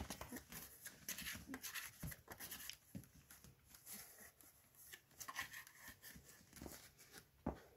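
Faint, irregular scratching and rustling as a young puppy moves about on the paper-lined floor of a whelping box, with a single louder knock near the end.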